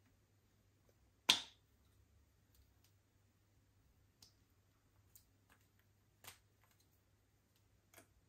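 Slime being worked by hand, giving one sharp pop about a second in, then a few faint scattered clicks and pops.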